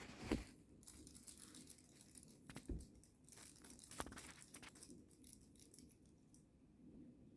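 Faint crinkling and rustling of a noisy cat toy being batted about, with a few soft knocks, the sharpest about four seconds in; it grows quieter over the last couple of seconds.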